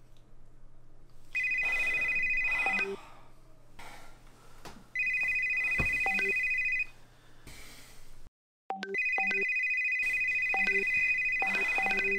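Mobile phone ringtone: a high, fast-warbling ring, heard three times, the third ring running on from about nine seconds in. Musical notes join in underneath near the end.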